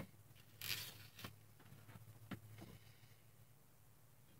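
Faint handling noises on a workbench: a short rustle about a second in, then a few light ticks.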